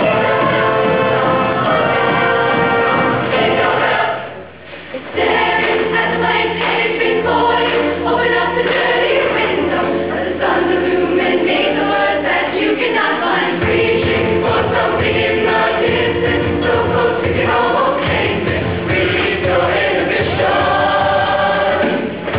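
Show choir singing in full harmony over instrumental accompaniment. About four seconds in the music breaks off briefly, then resumes over a long-held low bass note, and a steady beat comes in about halfway through.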